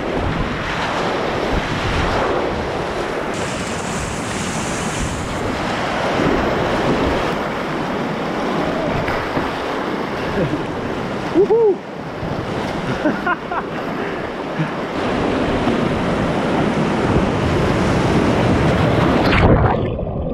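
Whitewater rapids rushing and splashing around a kayak, a steady loud torrent of water. Near the end the sound turns dull and muffled as the microphone goes under water.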